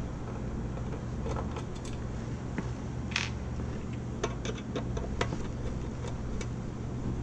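Screwdriver working screws out of a plastic instrument housing: scattered small clicks and taps of metal tool on screws and case, with a short scrape about three seconds in. A steady low hum runs underneath.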